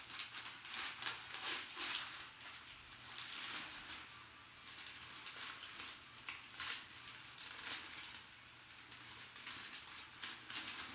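Packaging being handled and unwrapped: plastic and paper crinkling and rustling in irregular short strokes.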